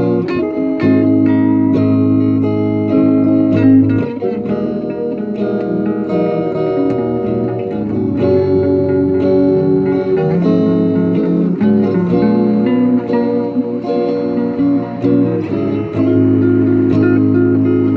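Two Stratocaster-style electric guitars played together in a jam: ringing chords and picked notes that change every second or two.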